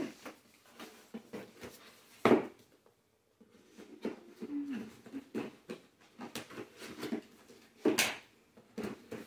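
Cardboard gift boxes handled and opened on a wooden floor: irregular knocks, scrapes and rustling, with sharp knocks a little over two seconds in and near the end. A short low whine comes about halfway through.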